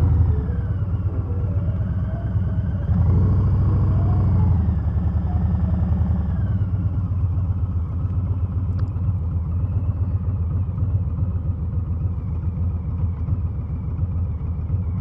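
Harley-Davidson Low Rider S's Milwaukee-Eight 114 V-twin running through a TBR Turnout 2-into-1 exhaust while riding, a deep pulsing rumble. It revs up about three seconds in and eases off a few seconds later, then runs on steadily.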